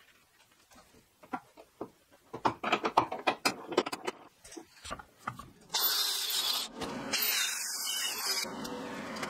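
Scattered clanks and knocks as a rusty steel tube from an Argo 8x8 body is taken out and handled. About six seconds in, a steady, high hissing begins as a tool works the metal.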